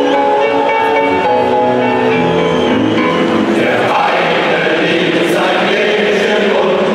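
Music with choir-like singing, held notes, fades out about halfway through, as a packed football stadium crowd takes over with a loud roar of cheering and chanting.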